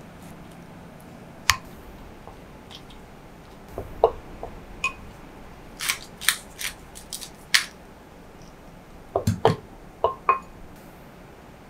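Utensils clinking and knocking against a glass mixing bowl during mixing: irregular sharp taps, some with a brief glassy ring, coming in small clusters, with the loudest knocks about nine seconds in.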